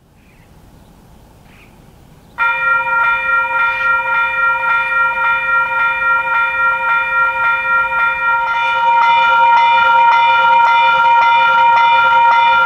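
Railway level crossing warning bell starts abruptly about two seconds in and keeps ringing with rapid, even strikes; a second bell joins about six seconds later. It signals a train approaching the crossing.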